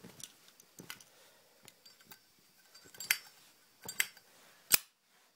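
Zippo lighter being handled: a series of sharp metallic clicks and clinks as the hinged lid is flipped open and snapped shut, the loudest click near the end.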